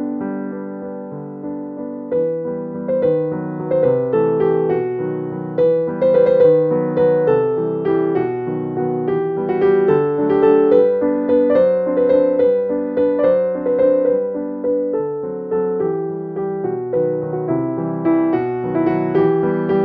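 Background piano music: a steady run of melodic notes.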